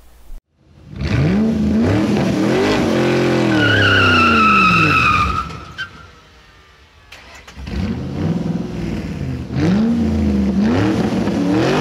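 Car engine revving up and down hard in two runs, with tires squealing for about two seconds during the first run, as in a burnout.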